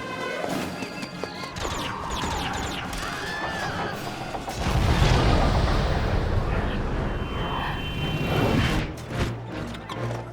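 Music mixed with cinematic sound effects: sweeping, gliding tones early on, then a deep boom about halfway through that sets off several seconds of heavy low rumble.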